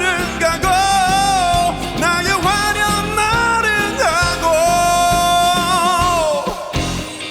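A male singer performs a Korean pop ballad with a live band of guitar, bass and drums. Near the end he holds one long note with vibrato, which stops about six and a half seconds in while the band plays on.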